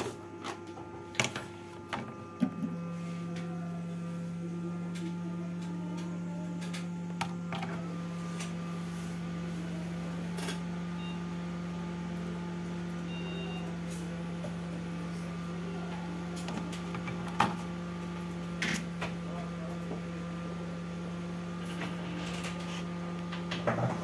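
Hot air rework station's blower starting about two and a half seconds in, then running with a steady hum. A few light clicks and taps come over it.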